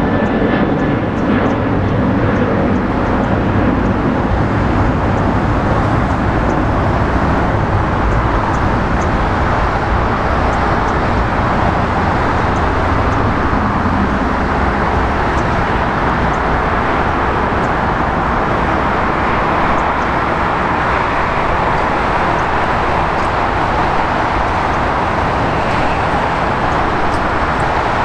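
Boeing 777-300ER's GE90 turbofan engines running at taxi thrust as the jet rolls along the taxiway, a steady rushing noise.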